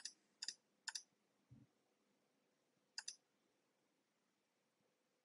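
Computer mouse button clicked four times, three in quick succession and one more about two seconds later, each a quick double tick of press and release, as a filter dropdown is opened and closed. A soft low thump comes between the third and fourth clicks.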